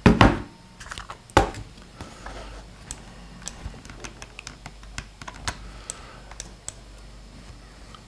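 Irregular clicks and taps of a computer keyboard and mouse being worked, with two louder knocks in the first second and a half.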